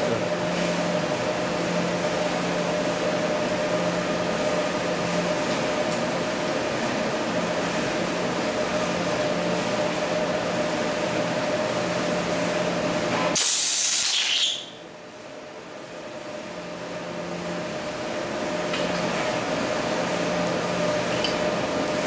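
Steady machine hum, then about 13 seconds in the arc of a stud weld fires: a loud hissing crackle lasting about a second as a steel straight pin is arc-welded to a steel plate inside its ceramic ferrule. After it the background drops away and slowly comes back.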